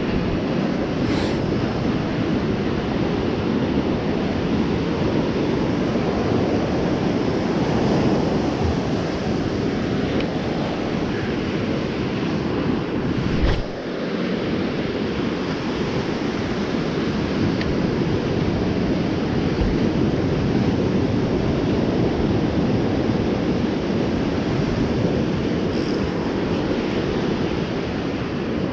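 Surf breaking and washing up a sandy beach, mixed with wind buffeting the microphone, a steady rumbling rush. A single sharp knock about halfway through.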